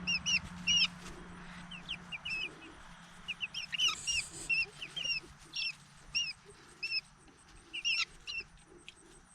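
Young chickens peeping: many short, high chirps in quick, uneven succession from several chicks at once. A low steady hum fades out about two seconds in.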